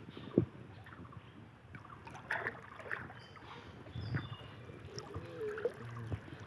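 Water sloshing and splashing as hands grope inside a bamboo polo fish trap pressed into shallow muddy water, with scattered short splashes and knocks, the sharpest about half a second in.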